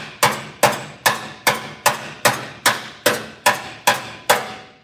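Spoon hammer tapping the sheet steel of an aftermarket Volkswagen Beetle fender in an even rhythm, about two and a half blows a second, each with a short metallic ring. It is knocking down a very minor imperfection left in the panel, and the blows stop just before the end.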